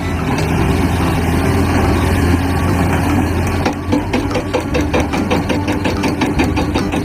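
Excavator engine sound with a steady low idling rumble. About four seconds in, a rapid rhythmic hammering joins it, like a hydraulic rock breaker at work.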